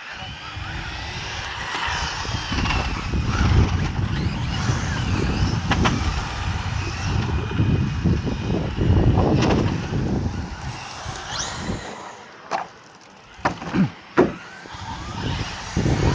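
Brushless electric motor of a 1/8 RC car whining, its pitch rising and falling as the car accelerates and slows, over a low rumble of tyres on asphalt. The sound drops off about twelve seconds in, followed by a few sharp clicks.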